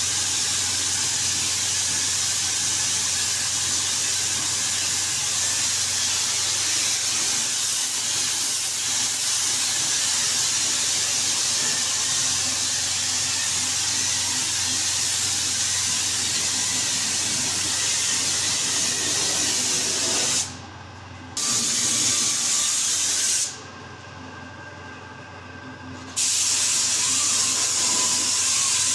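Compressed-air paint spray gun with a siphon cup below it, hissing steadily as it atomises paint. The hiss stops twice near the end, once briefly and once for about two and a half seconds, while a steady low hum carries on underneath.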